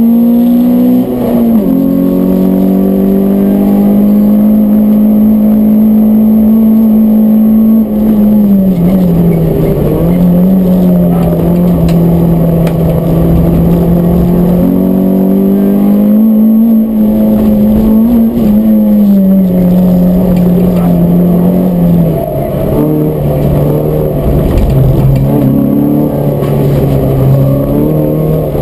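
Peugeot 106 S16's four-cylinder engine heard from inside the cabin under hard driving, loud and steady for long stretches, its pitch dipping and climbing back several times, around a third of the way in and again in the last third.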